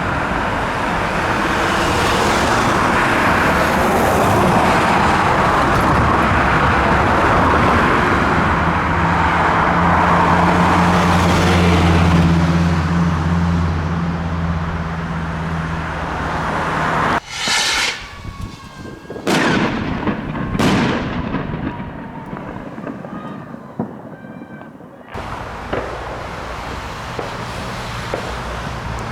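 Vehicle and road noise with a steady low engine hum. Partway through it cuts to fireworks: three sharp bangs with falling whistles over a few seconds, then a lull with faint crackling. Near the end it cuts back to vehicle and road noise.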